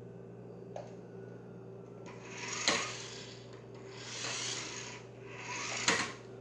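Toy remote-control car driving across the floor: a rubbing, whirring noise that swells and fades three times, with a few light knocks, the loudest about two-thirds of a second before each swell ends.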